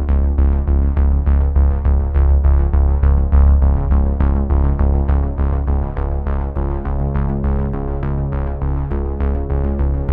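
Background music with a steady beat over a sustained deep bass.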